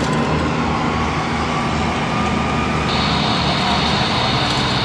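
Jet turbine running with a steady rushing roar; a whine rises slowly in pitch, and a second, higher whine comes in about three seconds in, over a low steady hum.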